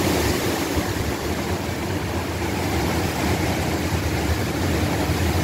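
Steady rush of storm wind and rain, with a low rumble of wind buffeting the microphone.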